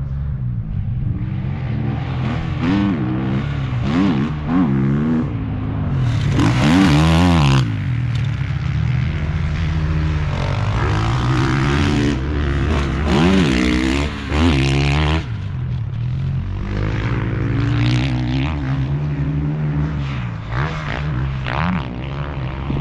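Motocross dirt bike engines revving up and down over a steady low engine drone, the revs rising and falling every second or two. About six seconds in a loud rushing noise swells for a couple of seconds.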